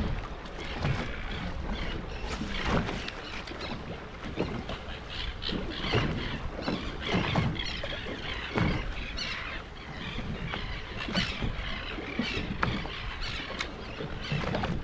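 Wind buffeting the microphone over water noise on a small fishing boat, in irregular gusts and splashes with no steady tone.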